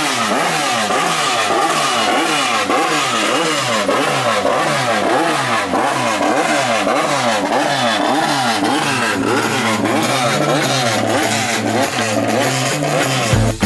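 Volkswagen Vento Turismo Nacional race car's engine revved over and over in quick blips, the pitch rising and falling about twice a second.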